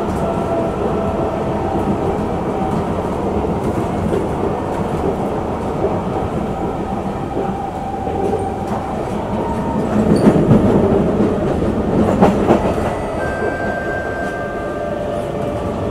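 Singapore MRT train running, heard from inside the passenger car: a steady rumble of wheels on rail, getting louder with a run of clatter and knocks about ten to thirteen seconds in.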